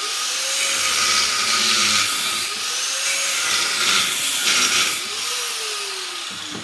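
Corded angle grinder with a cutoff disc cutting through the copper windings of a vacuum cleaner motor's field coil, its motor pitch dipping and recovering as the disc bites. About five seconds in it is released and winds down with a falling whine.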